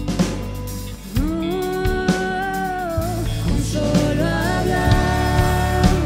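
Contemporary Christian worship band playing live: a voice slides up into a long held note about a second in, then sings another phrase, over a steady bass line, drums and electric guitar.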